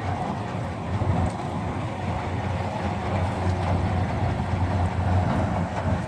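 Heavy engine of an old lattice-boom crawler crane running steadily, a low rumble that gets louder about a second in as it works.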